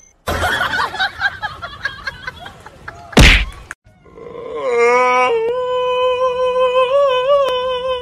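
Scattered knocks and a loud thump about three seconds in, then a domestic cat gives one long, drawn-out meow of about four seconds, its pitch holding steady with slight wavers.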